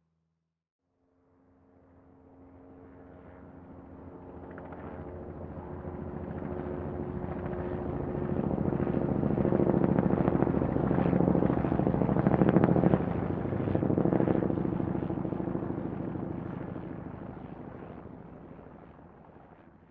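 Helicopter flying past: its rotor and engine noise comes up gradually from nothing, peaks about halfway through, then fades away.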